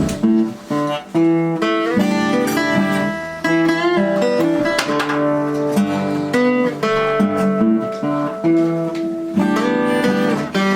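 Acoustic guitar music, strummed chords with picked melody notes.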